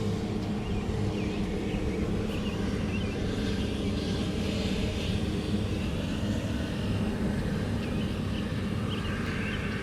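A steady low engine drone with a constant hum, with a few faint high chirps over it.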